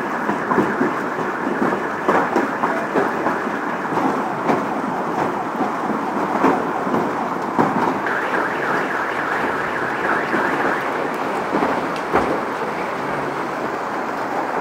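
Heavy hail falling on pavement: a dense, continuous clatter of hailstones, with many sharp separate impacts standing out of the steady hiss.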